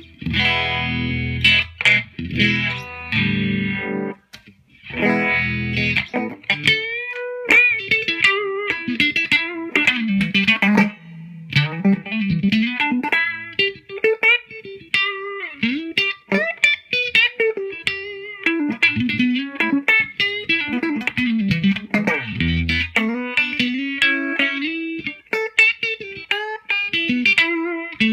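Electric guitar, a Fender Stratocaster with underwound Fralin pickups, played through a Big Knob Pedals Vibe Tone Uni-Vibe clone into a Fender '65 Deluxe Reverb Reissue amplifier, with the pedal's warbling rotary-style modulation. The guitar strums full chords for the first few seconds, then plays single-note lead lines with string bends.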